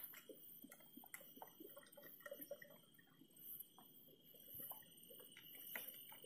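Near silence: faint outdoor ambience with a steady high tone and scattered faint ticks.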